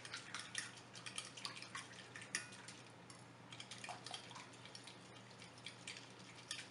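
Plastic spoon stirring a thin, wet marinade in a glass bowl: faint, quick wet clicks and taps of the spoon against the glass and the liquid sloshing.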